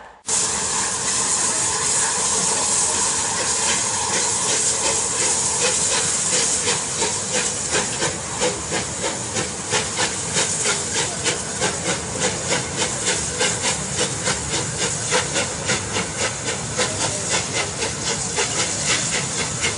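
Bulleid Merchant Navy class steam locomotive 35028 Clan Line hauling a Pullman train: a steady hissing rush of steam and train noise. From about six seconds in, a regular beat of about three strokes a second runs through it.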